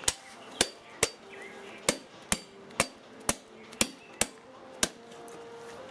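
About ten sharp blows, roughly two a second, stopping about five seconds in: a coconut being husked and hacked open with a blade.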